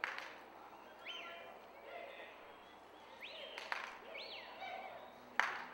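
Several short, high whistled chirps that rise quickly, hold and slide back down, with a few sharp knocks, the loudest near the end.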